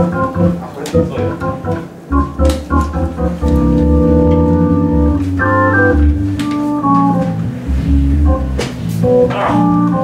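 Keyboard with a Hammond-style organ sound playing held jazz chords over changing low bass notes, with occasional cymbal and drum hits.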